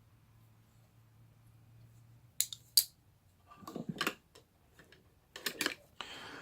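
Folding knives being handled: two sharp metallic clicks about two and a half seconds in, then further clicks and brief knocks and rustles of handling.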